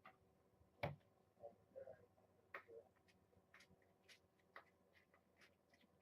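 Faint scattered clicks and light taps, with one sharper knock about a second in and a run of small ticks through the second half.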